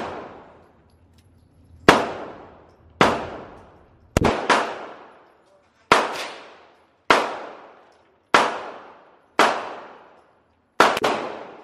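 Handgun gunfire at an indoor range: about ten shots, mostly around a second apart with a couple of quick doubles. Each crack rings out in a reverberant tail that fades over about a second.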